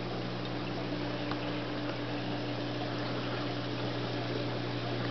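Reef aquarium equipment running: a steady low pump hum under an even wash of circulating water.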